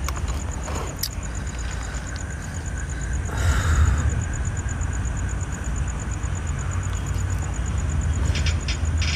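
Outdoor night ambience: a steady low rumble with a high, evenly pulsing insect trill running under it, and a brief louder rush of noise about three and a half seconds in.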